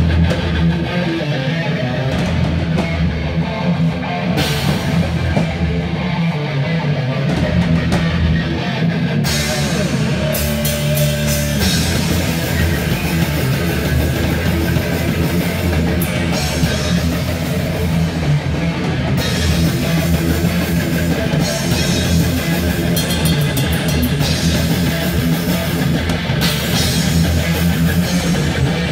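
Live rock band playing loud: a drum kit and electric guitar, with the cymbals filling in strongly about nine seconds in.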